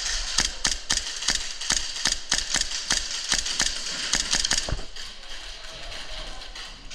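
Airsoft guns firing a quick run of sharp single shots, about four or five a second, that stops about five seconds in, over a steady hiss.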